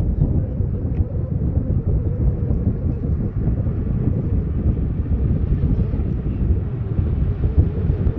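Wind buffeting the microphone: a steady, flickering low rumble with no clear pitch.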